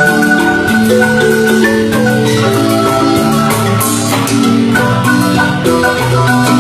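Guatemalan marimba music: several mallets play a melody and chords over low bass notes. The long notes are held by rapid rolls.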